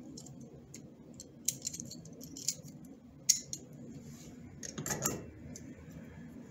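Small-diameter dry clutch clinking in the hands as it is handled, with scattered sharp metal clicks (the loudest a little after three seconds), then a brief scraping rub about five seconds in as it slides onto the kart engine's crankshaft.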